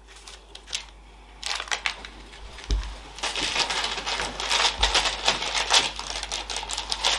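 Baking paper crinkling and rustling under hands that press and fold a soft dough crust, a dense run of small clicks and rustles that starts about a second and a half in, with two dull thumps on the wooden table.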